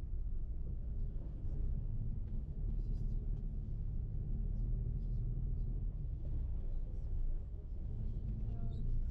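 Steady low rumble of a moving bus heard from inside the cabin: engine and road noise.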